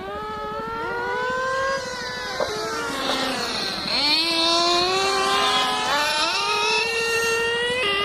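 Small nitro glow engines of two radio-controlled cars running hard, their high-pitched whine rising with each burst of throttle and dropping off between, with one car swooping past close by about three to four seconds in.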